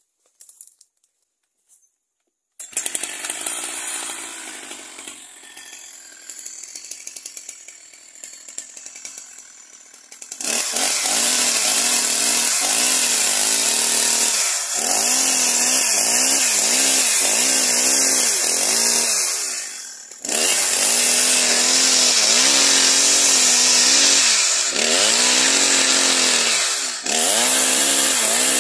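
Petrol chainsaw starting up about two and a half seconds in and idling unevenly. About ten seconds in it goes to full throttle and cuts into an overhead branch, its engine speed sagging and recovering under load, with the throttle briefly let off several times.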